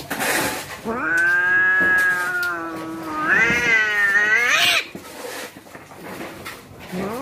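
Cats yowling at each other as they square up to fight. A long wavering yowl comes about a second in, then a louder wail rises in pitch and breaks off just before five seconds; a new yowl starts near the end.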